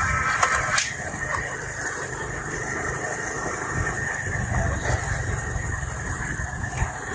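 A motor vehicle engine running steadily, with a low rumble throughout.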